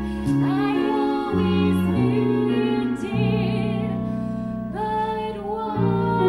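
A woman singing a Broadway show tune with vibrato, holding long notes, over instrumental accompaniment whose low chords change about once a second.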